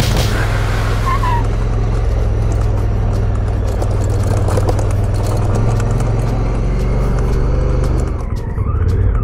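Honda Africa Twin's parallel-twin engine running steadily at low revs while riding a gravel track, with rough tyre-and-gravel rattle and many small clicks over it. The sound changes briefly near the end.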